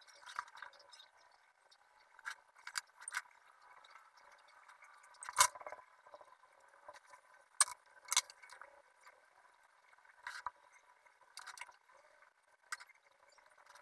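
Scattered light clicks and taps of small objects being handled on a desk, about ten in all and irregularly spaced, the loudest about five seconds in.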